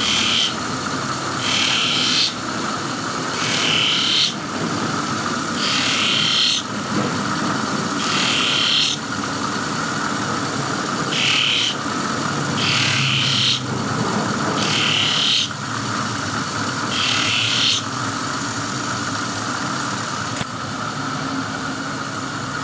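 A motor-driven bench wheel spins with a steady hum. A steel scissor blade is pressed against it again and again, giving a short burst of grinding about every two seconds. The bursts stop a little before the end, leaving only the hum.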